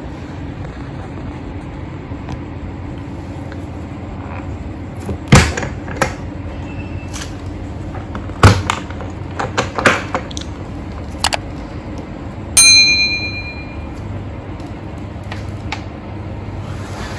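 Latches and lid of a makeup trolley case being unclasped and opened: a series of sharp clicks and snaps, one of them followed by a short metallic ring, over a steady low hum.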